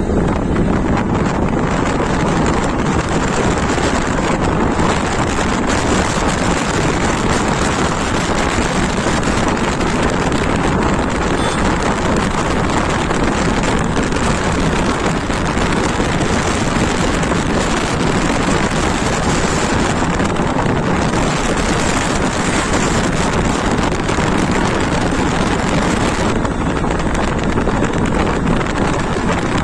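Steady wind rushing over a phone microphone on a moving two-wheeler, with the bike's engine running underneath.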